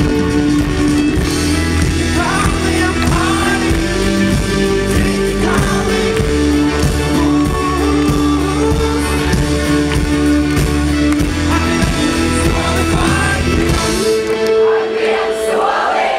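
A rock band playing a song live, a man singing lead over acoustic guitar, keyboard, bass and drums. About two seconds before the end, the bass and drums drop out, leaving the voice over held keyboard notes.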